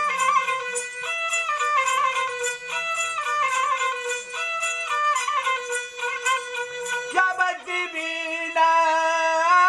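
Instrumental interlude of a Marathi devotional folk song: a melody instrument plays held notes that move in steps over a steady beat of light percussion.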